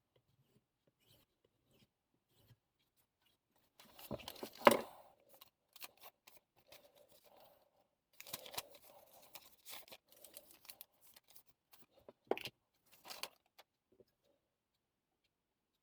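Intermittent handling noises: scattered clicks, knocks and rustling. The loudest knock comes about four and a half seconds in, there is a cluster of rustling around eight to ten seconds in, and a sharp click comes about twelve seconds in.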